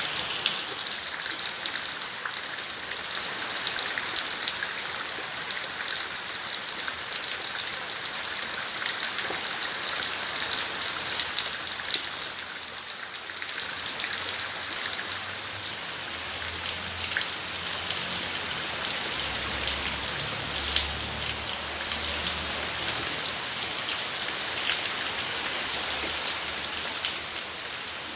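Rain falling steadily, a dense hiss of drops with many small ticks of individual drops striking surfaces.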